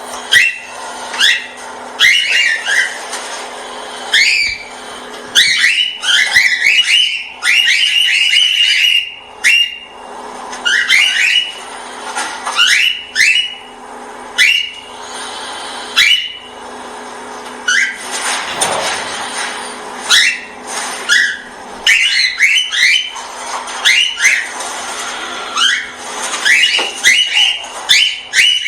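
Small pet parrots calling: short rising whistled calls repeated over and over, with a few runs of rapid chatter.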